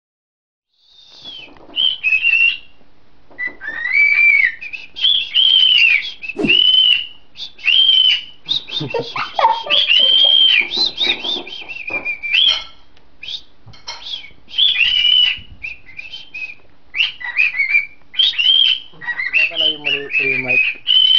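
Cockatiel whistling its song into a microphone held at its beak. Starting about a second in, it gives a long string of loud, high whistled notes that rise and fall in short phrases with brief gaps.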